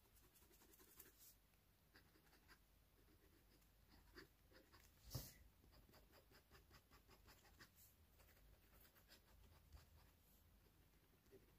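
Fountain pen nib scratching faintly across paper in short, quick hatching strokes, several a second, with one louder tap about five seconds in.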